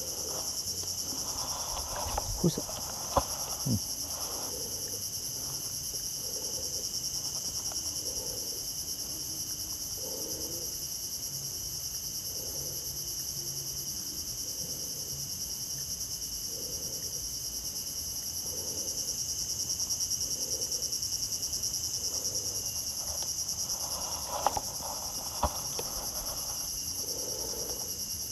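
Steady, high-pitched chorus of insects, unbroken throughout. A few sharp clicks sound a couple of seconds in and again near the end.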